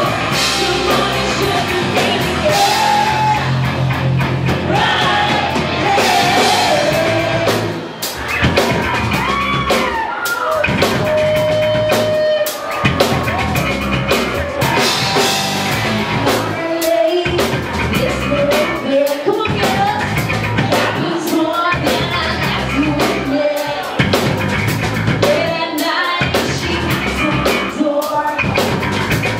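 Live rock band playing: a female lead vocal sung over electric guitars, bass and a drum kit.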